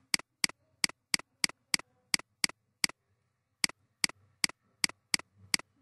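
Computer mouse button clicking in a quick, even rhythm, about fifteen sharp clicks at roughly three a second with a brief pause near the middle: dab after dab of a brush while digitally painting.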